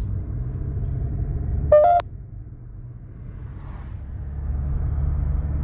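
Low road and engine rumble inside a moving car, with a short, loud beep just under two seconds in.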